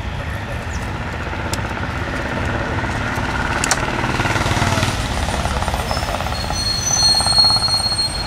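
Steady rumbling vehicle noise, growing a little louder through the middle, with a few faint clicks and a thin high-pitched squeal near the end.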